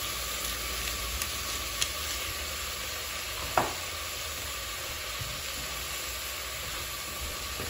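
Chicken breast pieces browning in olive oil in the bottom of an aluminium pressure cooker, giving a steady sizzle. One short knock about halfway through.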